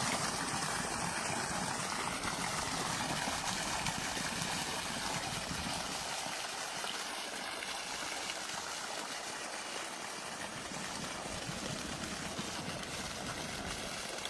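Running water: a stream flowing steadily.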